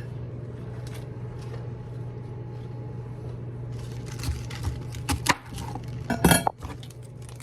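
Knife and fork clinking and scraping on a plate while a steak burger is cut into little pieces, in scattered sharp clicks with the loudest cluster about six seconds in. A steady low hum runs underneath.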